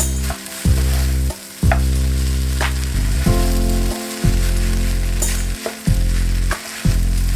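Fried rice sizzling in a frying pan, stirred with a spatula, with a few sharp taps and scrapes of the spatula on the pan. Under it run sustained low notes of background music that change every second or so.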